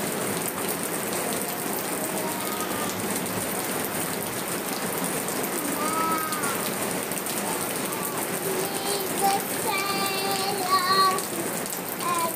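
Steady rain falling on a concrete rooftop floor.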